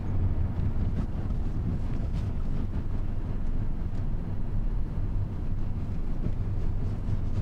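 Steady low rumble of a car's engine and tyres on the road, heard from inside the cabin as it drives.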